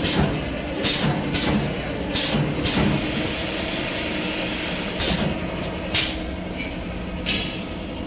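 Toilet paper converting machinery running with a steady hum, broken by sharp mechanical clacks: four in quick succession about every half second, then a few more at uneven intervals.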